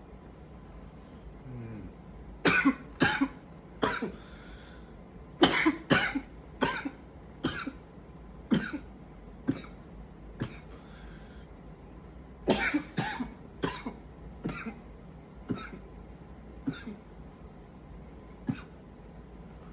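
Man coughing in three dry coughing fits: a few quick coughs about two and a half seconds in, then two longer runs in which the coughs come fast at first and then slow to about one a second.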